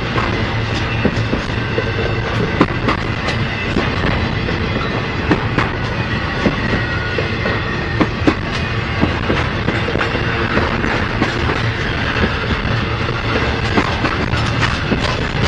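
Freight train cars rolling past, wheels clacking irregularly over the rail joints over a steady rumble.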